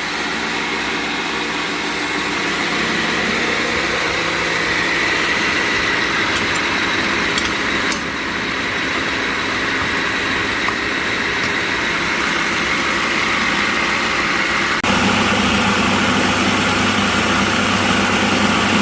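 Food processor motor running steadily, blending chickpeas into hummus until soft. About 15 s in the sound changes abruptly, getting louder and lower.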